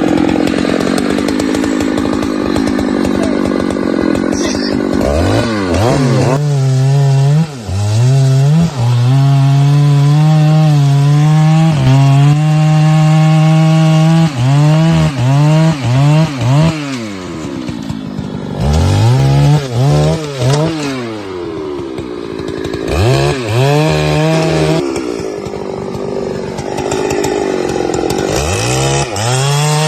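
Chainsaw cutting wood, trimming the bottom of a log. The engine runs at high revs, its pitch dipping and climbing back again and again as the throttle is worked and the chain loads in the cut.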